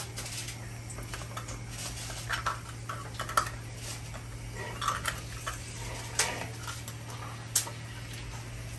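Metal tongs clicking and scraping against a metal wok as a long strip of dried pork skin is turned in hot frying oil: a scattering of sharp, irregular clicks over a steady low hum.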